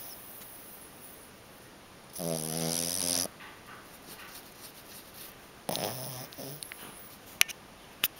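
French bulldog snoring in its sleep: a loud snore about two seconds in and a second one about six seconds in, with quieter breathing between. Two sharp clicks near the end.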